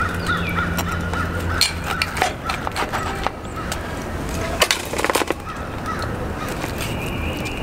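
Outdoor birds calling, with a harsh, rough call about five seconds in, over a scatter of sharp clicks and knocks. A low hum stops about a second and a half in.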